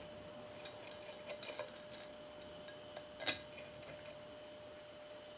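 Small metal clinks and ticks as steel head bolts and washers are handled at the engine's cylinder head: a scattering of light clicks in the first two seconds and one sharper clink a little past three seconds in, over a faint steady hum.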